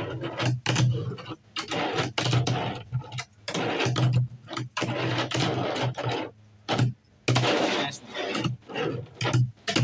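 Tech Deck fingerboard wheels rolling and clacking across a tabletop, in a run of short rumbles and sharp taps from pushes, flicks and landings, broken by a couple of brief pauses.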